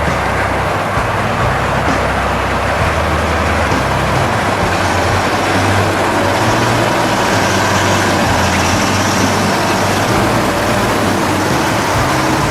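Heavy tracked all-terrain carrier running steadily, a continuous engine and running-gear noise.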